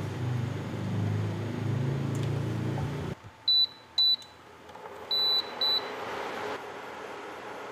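A whisk sloshing liquid in a pot for the first three seconds, then a Toha induction cooktop's control panel beeping four times as its buttons are pressed: two short beeps, then a longer beep and a short one.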